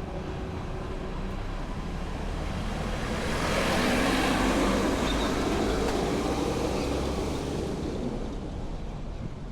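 A road vehicle passing by on the street: its tyre and engine noise swells to a peak about four seconds in, then fades away, over a steady background hum of traffic.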